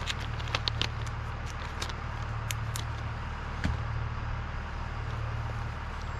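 Crinkling and clicking of a small plastic zip bag and tackle being handled, in quick bursts in the first three seconds and a single knock near the middle. Under it runs a steady low hum.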